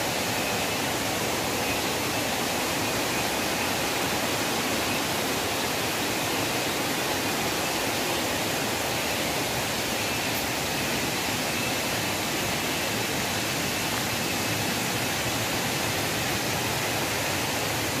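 Steady, even rush of water from a waterfall or stream heard through the forest, with a faint high steady whine above it.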